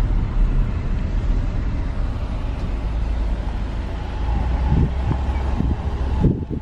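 Steady low rumble of a car rolling slowly down a brick-paved street, heard from inside the car, with a few low thumps in the last two seconds.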